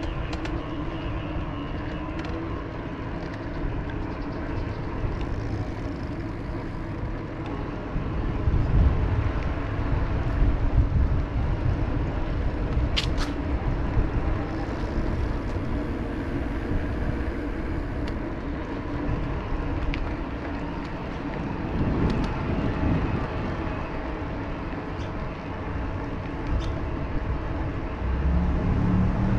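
Steady noise of riding an electric mountain bike: low rumble from wind on the microphone and tyres, with road traffic around, and one sharp click about 13 seconds in.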